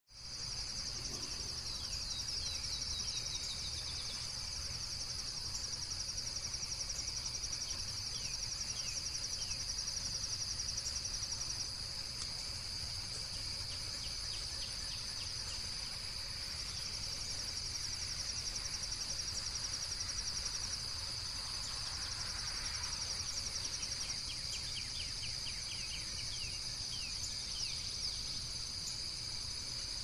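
Nature ambience of insects trilling in a steady high chorus, with stretches of rapid even pulsing like crickets and short high chirps now and then.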